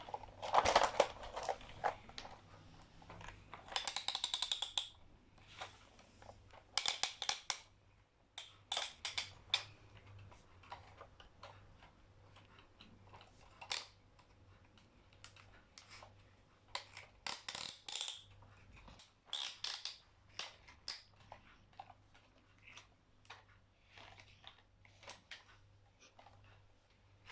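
Scattered clicks, taps and rustling from hands handling a plastic toy vehicle and its packaging, with a few louder bursts of rustling around 4, 7, 18 and 20 seconds in.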